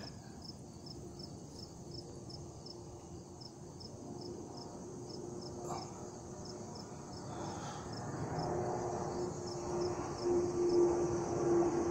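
Insects chirping in a steady, even pulse of about three chirps a second. Over the second half a distant engine drone, like an aircraft passing overhead, grows louder.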